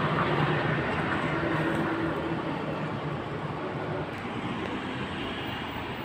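Steady street traffic noise, loudest at the start and slowly fading, with a faint low hum in the first couple of seconds.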